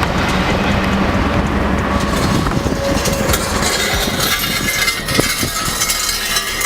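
Steady vehicle noise: a loud, even rumble of a moving vehicle.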